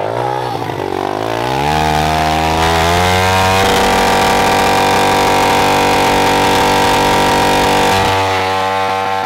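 Pit bike engine revving up over the first few seconds, then held at high revs during a burnout, with the rear tire spinning and smoking. The revs drop slightly about eight seconds in.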